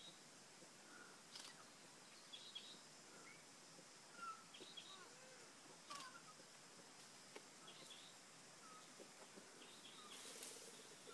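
Near quiet, with faint short chirping calls scattered throughout and a few soft clicks; a brief hiss about ten seconds in.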